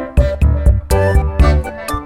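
Upbeat background music: a keyboard or synthesizer melody over a bass line and a light, regular beat.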